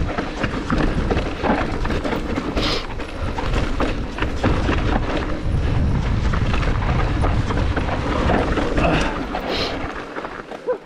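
Mountain bike riding fast down a rocky, gravelly dirt trail: tyres crunching over stones and the bike rattling over bumps, under a heavy low rumble of wind on the microphone. It gets quieter near the end.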